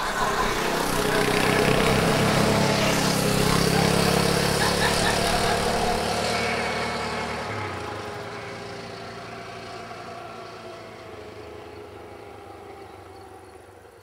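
Several motorcycles and a car passing on a country road and riding away, their engines loud at first, then fading steadily into the distance.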